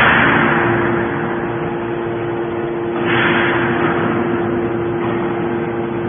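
250-ton hydraulic metal baler running: a steady hum from its hydraulic power unit, with two loud hissing surges, one at the start and another about three seconds in, each fading over about a second.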